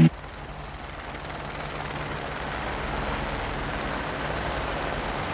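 Helicopter in flight, a steady rumble and rush that grows louder over the first few seconds and then holds.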